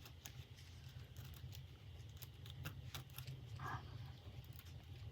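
Faint scattered clicks and taps of hands working a metal clasp purse frame and fabric on a work surface, with a short higher sound about three and a half seconds in, over a low steady hum.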